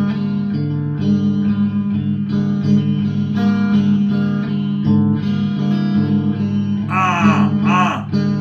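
Guitar music: plucked and strummed chords changing about once a second, with a short burst of voice about seven seconds in.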